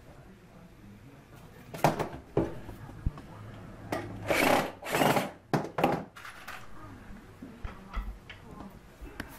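Power drill driving screws into a wooden rail of a walnut cabinet panel in a few short bursts, four to six seconds in. A couple of sharp wooden knocks come just before, as the panel is handled.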